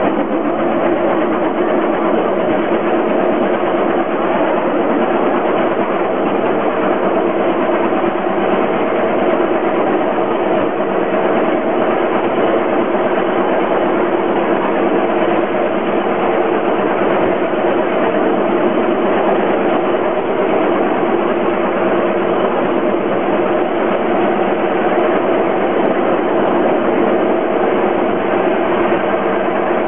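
Engine-powered rail trolley running along the track, its engine droning at a constant pitch and level.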